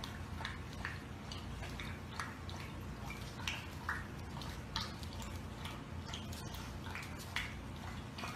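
French bulldog puppy making small, irregular clicks and ticks, a few a second, over a steady low hum.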